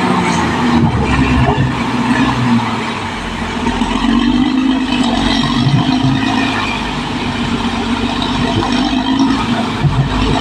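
Caterpillar D6R XL crawler bulldozer's diesel engine running steadily, with low rumble and irregular clanking.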